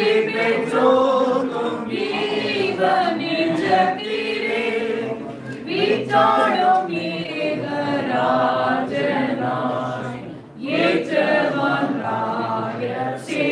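A group of voices singing together without instruments, holding long notes, with a short pause about ten and a half seconds in.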